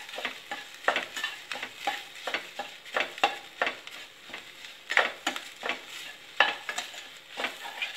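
A metal spatula stirring and scraping around a stainless steel kadai, dry-roasting grated coconut, shallots and spices: irregular scraping strokes, two or three a second.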